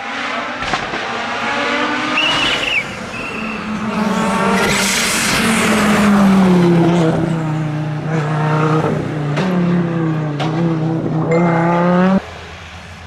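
Audi Quattro S1 rally car's engine at speed, the revs climbing and dropping several times through gear changes, with tyre noise. The sound drops off abruptly about twelve seconds in.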